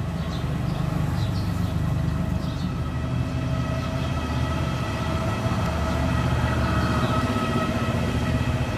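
Steady hum of a dwarf honeybee colony clustered over its comb close by, several even tones held without a break over a low rumble.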